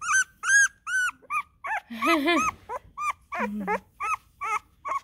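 Two-week-old Lemon Beagle puppies crying for their mother: a rapid run of short, high, rising-and-falling squeals, about three a second, with a longer, lower trilling cry about two seconds in.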